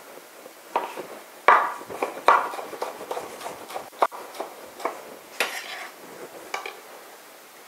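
Chef's knife slicing a tomato on a wooden cutting board, the blade knocking against the board in an irregular run of sharp taps that stop near the end.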